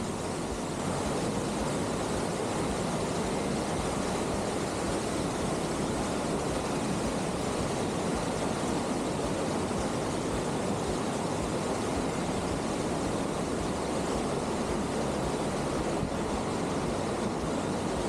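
Steady rush of a swollen mountain stream, running high with extra water after heavy rain a week earlier.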